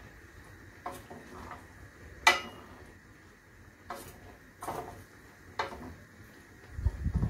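Spatula knocking and scraping against a stainless steel frying pan as shrimp and vegetables are gently stirred: a few separate clinks, the loudest about two seconds in. A low thump near the end.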